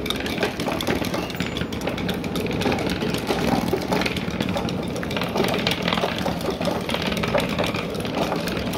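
Wooden slat mill turning under a walking dog: its wooden slats clatter in a steady run of rapid clicks over a rumble.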